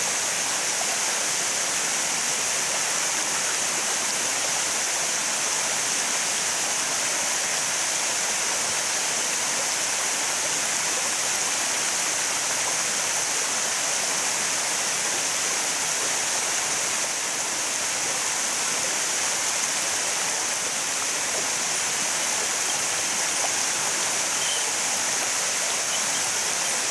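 Water spilling over a low concrete sabo (erosion-control) dam and falling into the pool below: a steady, even rush of falling water.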